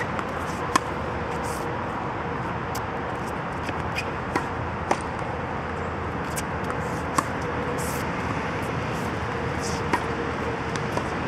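Tennis balls struck by rackets on a hard court: about half a dozen sharp pops, irregularly spaced a second or more apart, over a steady hiss of outdoor background noise.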